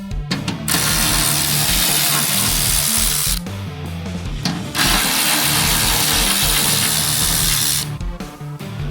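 A power tool running in two long bursts of about three seconds each, with a short pause between them, while backing out fender bolts. Background music plays underneath.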